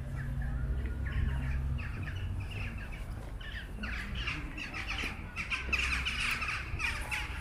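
A flock of birds calling and chattering densely, the calls thickening and growing louder about halfway through. A steady low rumble lies underneath.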